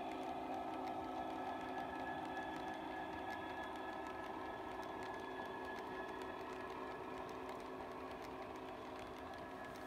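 OO gauge model freight train, a Freightliner diesel locomotive hauling hopper wagons along the track: a steady motor hum and rolling wheel noise with faint clicks, slowly fading as the locomotive draws away.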